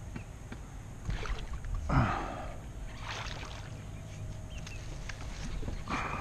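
Bass splashing at the water's surface close to a kayak as it strikes a spinnerbait and is hooked: one loud splash about two seconds in, smaller splashes around it, and another near the end.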